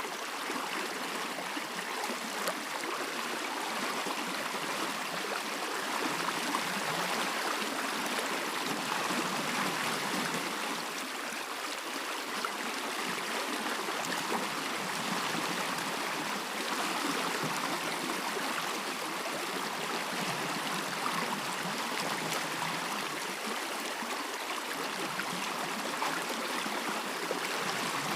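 Stream flowing, a steady rushing and babbling of water.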